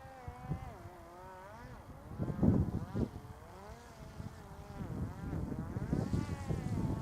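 Parrot Disco fixed-wing drone's electric motor and propeller whining, the pitch wavering up and down as the throttle changes. Heavy low rumbling bursts come through as well, loudest about two and a half seconds in.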